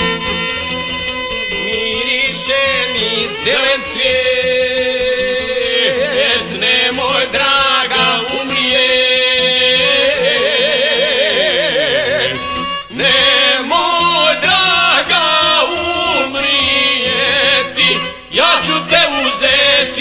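Men singing a traditional Bosnian folk song over a plucked šargija and violin. The voices come in about two seconds in and hold their notes with a wide vibrato.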